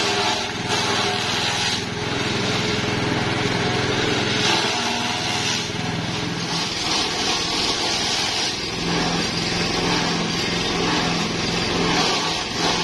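Motor-driven forage chopper running under load as long grass stalks are fed into it: a steady machine hum under the rushing noise of the blades cutting the grass, which swells and eases as each bundle goes through.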